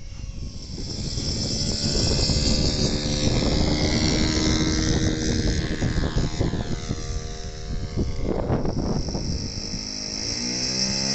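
Radio-controlled model airplane engine and propeller running, its high whine sliding in pitch through the first half under a loud rushing noise. Near the end a steady engine note sets in: the tow plane's engine running on the ground, trailing exhaust smoke.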